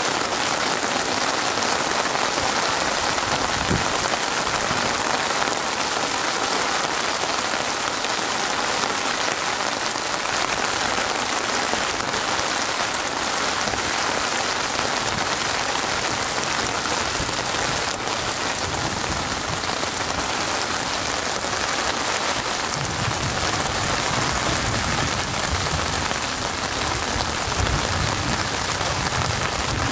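Steady rain falling on open water, an even, unbroken hiss of drops. A low rumble joins underneath in the last third.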